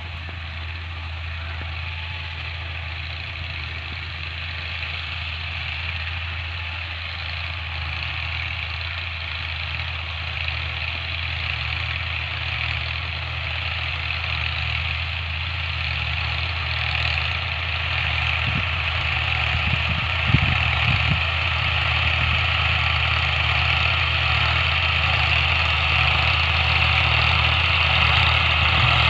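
New Holland 480S (Fiat 480) tractor's diesel engine running steadily under load while pulling a cultivator, growing gradually louder as it approaches.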